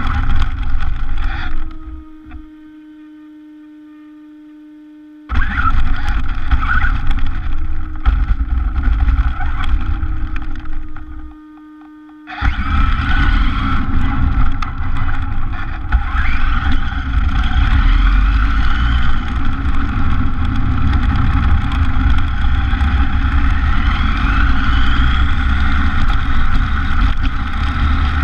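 RC car driving on a paved road, heard from its onboard camera: a loud rumble of motor and tyre noise with a rising whine now and then. About two seconds in, and again briefly around eleven seconds, the noise cuts out to a faint steady hum before starting again.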